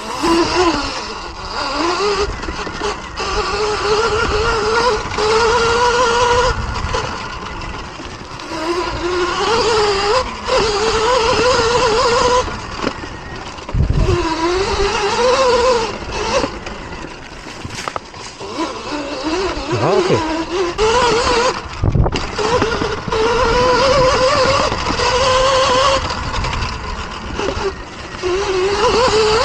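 Sur-Ron Light Bee electric dirt bike being ridden over a dirt trail: the electric motor's whine rises and falls in pitch again and again with the throttle, over a steady rush of tyre and wind noise. A couple of heavy thumps come from bumps in the trail, one about halfway through and one later.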